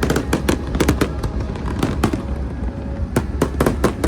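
Fireworks going off in a rapid, irregular string of sharp cracks and pops over a steady low rumble, thickest at the start and again near the end.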